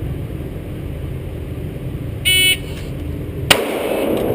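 Pocket Pro II shot timer's start beep, one short high electronic tone about two seconds in. About a second and a quarter later comes a single 9mm shot from a Glock 17C pistol, a sharp crack with a brief echo, fired from a draw against the timer.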